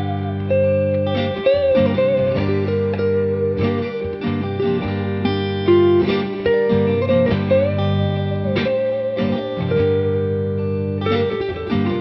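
Squier Bullet Stratocaster electric guitar played through an amp: a single-note lead line with string bends and vibrato over ringing low notes.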